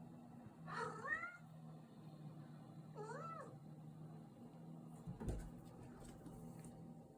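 A domestic cat meowing twice, short calls that rise and fall in pitch, followed by a single thump about five seconds in.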